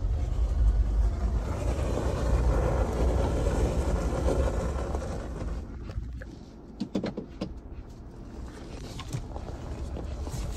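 Ford Bronco driving slowly, heard from inside the cabin: a steady low rumble of engine and tyres with a rush of wind that eases off after about five seconds. A few light knocks and clicks come around the middle.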